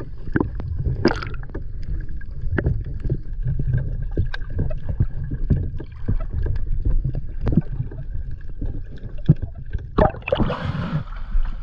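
Underwater sound of a scuba diver moving through a flooded boat cabin: a steady low rumble with scattered clicks and knocks, and a rush of bubbling about ten seconds in.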